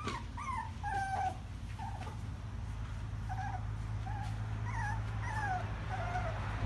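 Young puppies whimpering: about a dozen short, high, wavering cries, several sliding down in pitch, with a steady low hum underneath.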